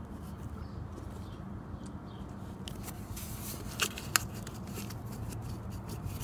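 Fingers working the squeeze clips of a plastic wiring connector on a 42RE automatic transmission, giving small scattered plastic clicks and rubbing, with two sharper clicks in quick succession a little past the middle, over a low steady hum.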